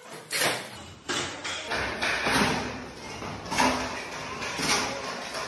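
Irregular thuds and taps, several a second.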